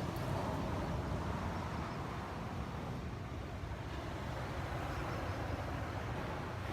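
Wind buffeting a phone's microphone outdoors: a steady, low, fluttering rumble.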